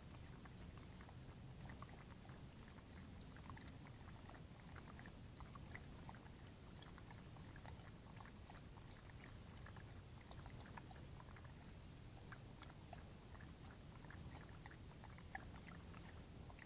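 A coyote lapping water from a bowl in the rain, heard faintly as many small, irregular wet ticks and splashes over a low steady hum.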